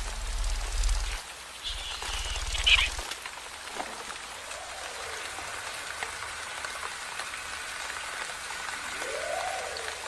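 Steady hissing noise, with a low rumble over the first three seconds and two short swooping tones, one about halfway and one near the end.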